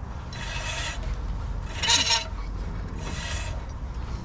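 UAZ Patriot front wheel turned slowly by hand, giving a scraping squeal three times at even intervals as the brake disc rubs. The thin sheet-metal shield over the ABS ring, pushed in by mud, is catching on the rusty, scaled disc.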